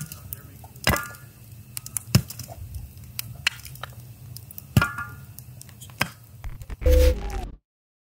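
Wood fire crackling in a metal fire pit as it is stirred with a poker, with sharp metallic clanks that ring briefly about a second in and again near five seconds. Near the end comes a louder, deeper knock, then the sound cuts off.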